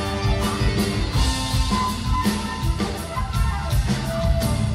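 Live progressive rock band playing an instrumental passage: drum kit, bass, electric guitar and keyboards, with a flute carrying short melody notes.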